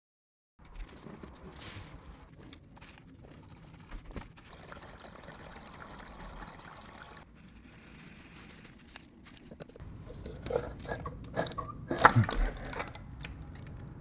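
Engine coolant pouring and trickling out of the coolant passage on the back of a BMW 545i's V8 block onto a plastic sheet as the passage plate is pried loose with screwdrivers. Near the end comes a run of sharp metal clicks and knocks as the plate comes free.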